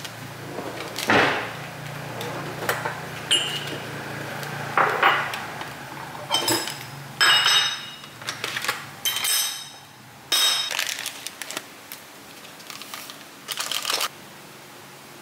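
Ceramic cups and a saucer clinking and knocking against each other and a steel kitchen drawer as they are handled, with plastic coffee sachets rustling: a run of separate clinks, some ringing briefly, the busiest stretch about seven to ten seconds in.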